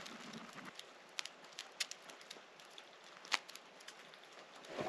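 Embers in a King Camp wood-burning camp stove crackling as the fire burns down: scattered sharp pops at irregular intervals, the loudest a little past three seconds in, over a faint steady hiss.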